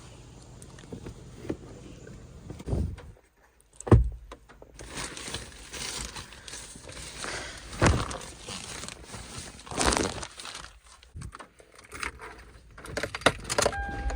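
Gear being packed into a car: rustling and crinkling with several dull thumps, the loudest about four seconds in.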